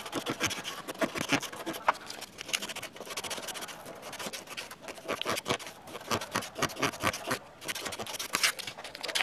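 Hand-held carving gouge scraping and paring wood in many short, irregular strokes.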